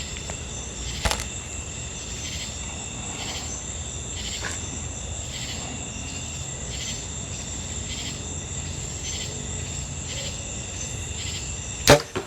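Steady chorus of crickets and other insects, its high trill pulsing in a regular beat. There is a small sharp click about a second in, and a loud sharp knock, heard twice in quick succession, near the end.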